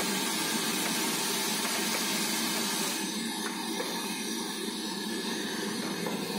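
Hot oil sizzling steadily around battered fritters deep-frying in a large wok.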